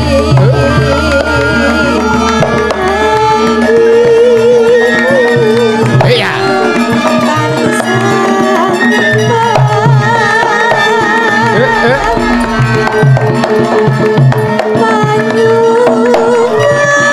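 Javanese gamelan playing, with steady ringing metallophone tones and regular strokes on the kendang hand drum, and a sinden's high voice singing a wavering, ornamented melody over it.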